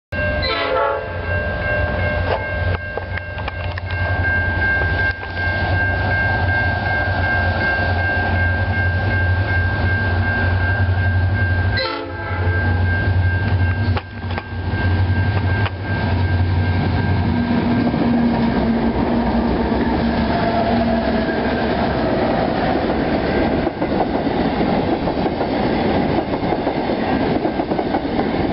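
Diesel locomotive of a grain train approaching and passing, its engine running with a strong low drone and a steady high tone over it for the first half. The drone then fades into the rumble and clatter of wagons rolling by on the rails.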